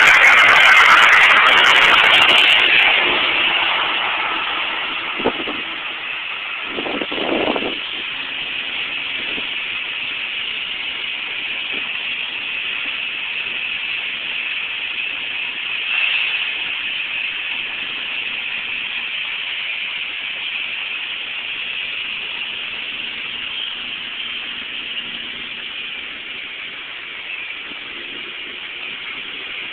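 A Metro-North push-pull train rolls past and fades over the first few seconds. A steady hiss and faint hum follows from a Metro-North M-3A electric multiple-unit car moving slowly past close by. A short knock comes about five seconds in and a brief louder burst a couple of seconds later.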